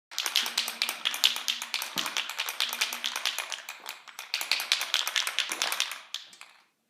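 Rapid, irregular clicking or tapping, many clicks a second, that dies away about six seconds in.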